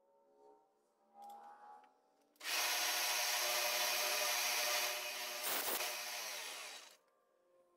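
Milling machine end mill cutting a small metal door blank, the hinge bosses of a miniature shaper's side door: a steady cutting noise with a whine through it starts about two and a half seconds in, gets sharper briefly near the middle, and stops about seven seconds in.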